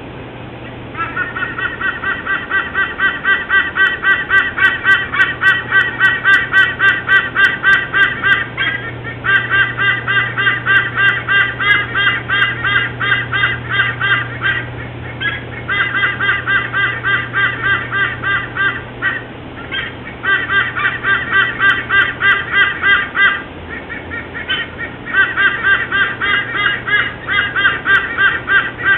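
White-bellied sea eagle calling: long runs of rapid, loud honking notes in five bouts broken by short pauses. A steady low hum runs underneath.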